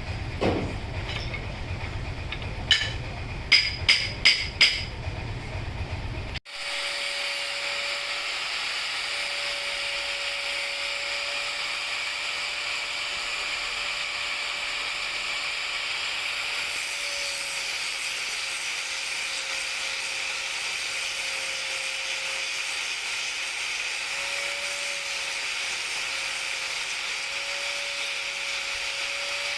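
Workshop sounds: a few sharp metallic clinks of tools on metal over a low rumble, then, after a cut, a steady hiss with a steady hum from a running machine.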